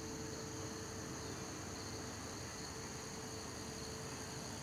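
Insects trilling steadily in several high, unbroken tones, over a low background rumble and a faint steady hum.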